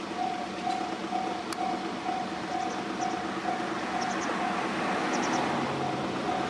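Japanese level crossing alarm ringing, a repeating electronic 'kan-kan' tone about twice a second. Under it, the noise of a train on the line builds up in the second half.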